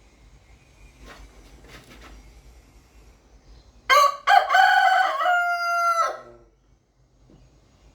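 Rooster crowing once: a single cock-a-doodle-doo that starts about halfway in with a short first note, then a long held note that ends after a couple of seconds.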